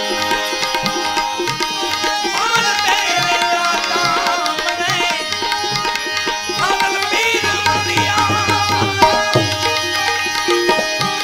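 Gujarati devotional bhajan music: tabla playing a steady rhythm under a melodic line that slides between notes, with a held low note in the second half.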